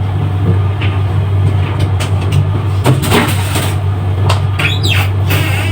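A steady low hum, with a few short light knocks and clicks from handling things in the kitchen.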